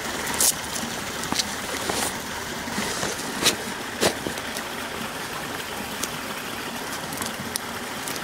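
A creek running steadily, with a handful of short sharp rustles and clicks from handling the nylon bag's hook-and-loop pocket and the holstered pistol going into it; the loudest come about half a second in and around three and a half and four seconds in.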